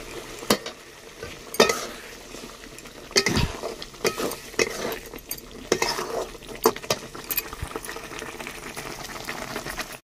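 Metal spatula scraping and knocking against a metal cooking pot while stirring a ground spice paste frying in oil, with a steady sizzle underneath. The scrapes come irregularly, about one every second or so.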